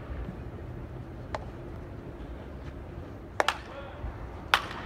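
Sharp, distant cracks of baseball infield practice, one about a second in, a quick pair past the middle and one more near the end, over a steady low rumble.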